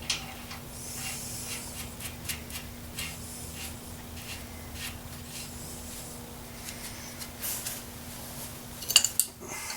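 Spindle nut being fitted over the washer and threaded onto a wheel spindle by hand: faint scattered metal clicks and scrapes, with a short clatter of louder clicks near the end.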